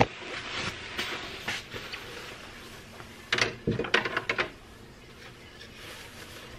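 Rustling of a nylon puffer jacket being taken off and hung on a plastic hanger, with a short burst of louder rustles and knocks about three and a half seconds in.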